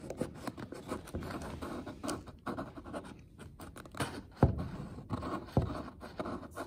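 Irregular light scratching and rubbing as the nozzle of a superglue bottle, held in a nitrile-gloved hand, works against the split ceiling wallpaper, with two sharper knocks about four and a half and five and a half seconds in.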